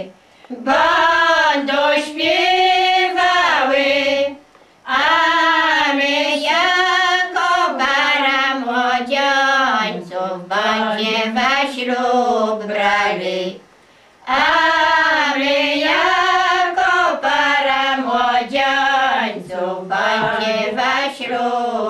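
Women's voices singing a traditional Polish wedding folk song in long drawn-out phrases, with brief breaks for breath about 4 and 14 seconds in.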